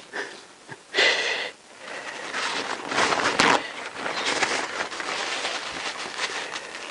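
Paper towel rustling and scrubbing as spilled fluid is wiped off an aluminium motorcycle cylinder head. There is a short sharp rustle about a second in, then a few seconds of steady rough wiping.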